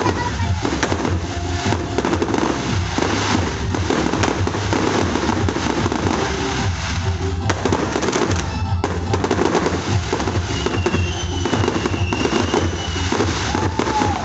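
A fireworks display going off continuously, with dense bangs and crackling, while music plays.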